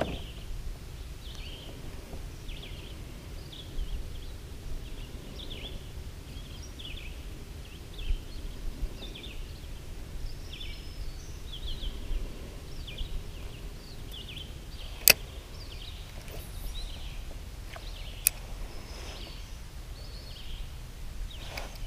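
Quiet outdoor ambience: faint short bird chirps scattered throughout over a steady low rumble, with one sharp, loud click about fifteen seconds in and a smaller click about three seconds later.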